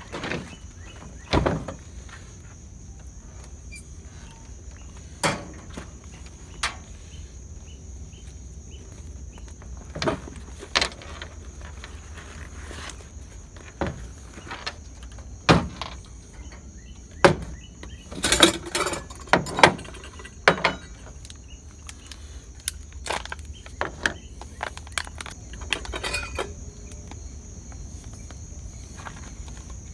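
Scattered knocks and clatter of camp cookware and gear being handled and set down on a truck tailgate, loudest in a burst about two-thirds of the way through. Beneath it runs a steady high insect buzz.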